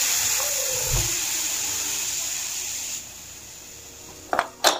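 Hawkins pressure cooker venting steam as its whistle weight is lifted with a steel ladle: a loud, steady hiss that drops sharply about three seconds in as the pressure runs out, followed by a couple of metal clinks near the end. It is the leftover pressure being released after cooking so the lid can be opened.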